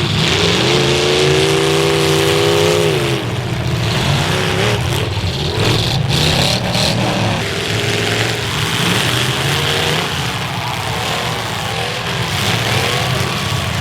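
Demolition derby car engines running and revving hard, their pitch rising and falling as the cars drive.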